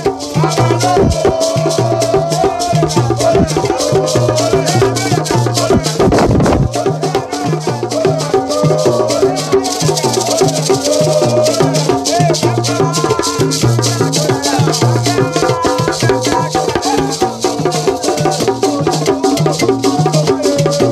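Group of men singing together to hand-held frame drums beaten with sticks, keeping a steady fast beat.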